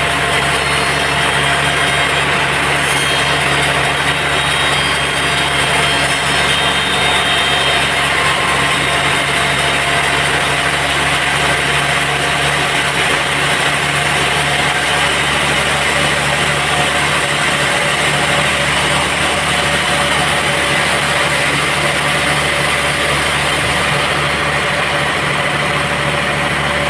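Sawmill machinery running steadily, an even engine-like hum with no pauses or changes.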